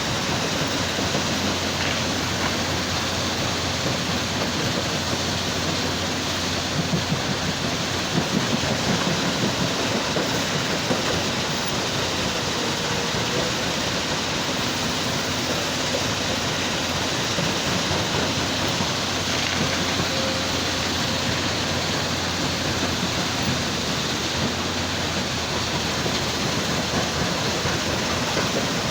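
Heavy machinery running steadily: an excavator working beside a stone-crushing machine, a loud, continuous mechanical noise with no clear rhythm, swelling slightly for a few seconds near the middle.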